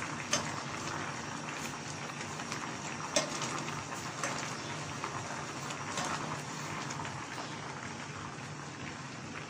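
Sugar syrup with raw-mango pieces boiling hard in a steel saucepan: a steady bubbling hiss with small pops, and a few sharper clicks.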